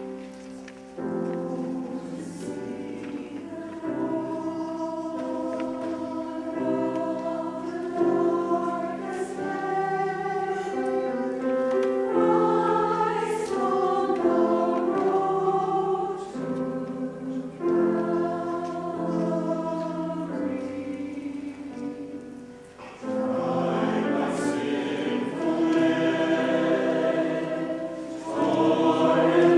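A church choir singing a sacred piece in several parts, holding sustained notes with a brief break about three-quarters of the way through before the voices come back in more strongly.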